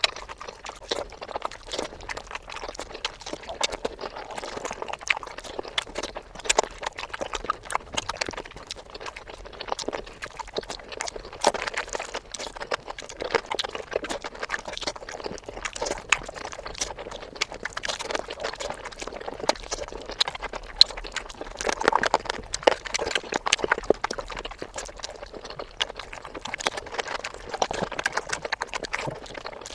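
Close-miked eating sounds: wet chewing and sharp lip and mouth smacks of a person eating fried rice and chicken in thick gravy by hand, with many quick clicks.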